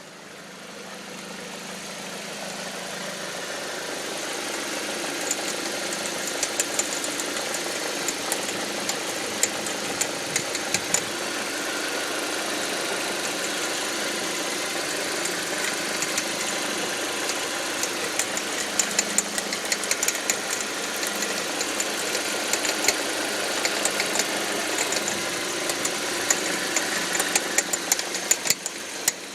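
2005 Audi 1.8T turbocharged four-cylinder engine running, growing louder over the first few seconds, with an irregular popcorn-like rattle of sharp clicks from around the alternator. The rattle occurs only under load in gear, with no check-engine light or oil-pressure warning; the owner wonders whether the water pump or alternator is at fault.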